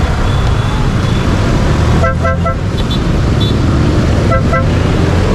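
Vehicle horn tooting in short quick beeps, a run of several about two seconds in and a shorter pair a couple of seconds later, over steady traffic and motorcycle engine noise.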